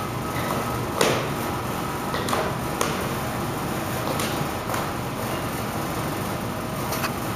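A kung fu practitioner's strikes and steps make about five short, sharp impact sounds spread over several seconds, the loudest about a second in. A steady hiss runs underneath.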